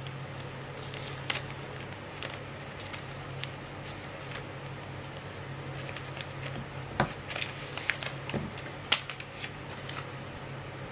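Clear plastic shrink-wrap crackling and crinkling as it is peeled off a cardboard iPhone box, with light clicks and taps of the box being handled on a table. The crinkling is sparse at first and busiest in the second half, with a sharp click about nine seconds in.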